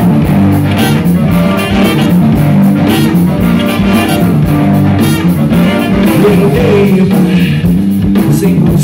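Live rock band with a horn section playing an instrumental passage: trumpet and saxophone over electric guitars, bass guitar and a steady drum beat.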